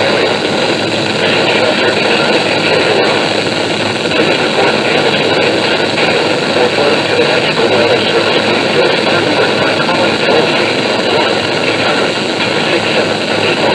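Weather radio static: a steady, loud hiss from a NOAA Weather Radio receiver on a weak, distant signal.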